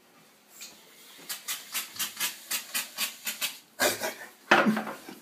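Aerosol shaving cream can hissing as foam is sprayed into a palm, in two spurts near the end. Before that comes a quick run of soft rhythmic ticks, about five a second.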